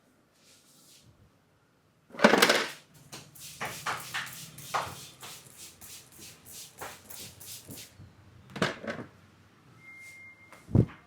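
Hands slapping and patting during a head and back massage: one loud slap about two seconds in, then a quick run of slaps and pats, several a second, another loud pair near the end, and a dull thump just before the end.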